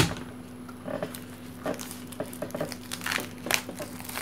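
Plastic shrink wrap crinkling and tearing as it is slit and peeled off a deck of cards by hand, in a string of short crackles, after a sharp tap at the start.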